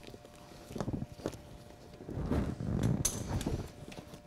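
A ratchet and 8mm socket working the bolts of a car's plastic under tray, with a few scattered clicks and knocks of the tool and the panel being handled.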